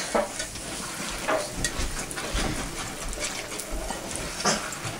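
A wire whisk stirring thick, bubbling milk gravy in a cast-iron skillet, with a steady sizzle from the boiling gravy and a few sharper clicks of the whisk against the pan.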